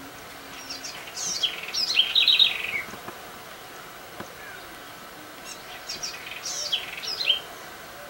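A songbird singing two short phrases of quick, falling high notes, the second starting about four seconds after the first.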